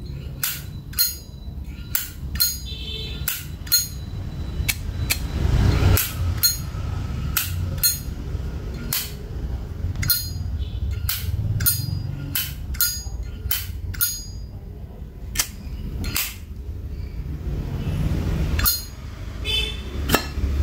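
Zippo lighter lids being flipped open and snapped shut over and over: sharp metallic clicks at an uneven pace, many with a short bright ping, over the rustle of handling.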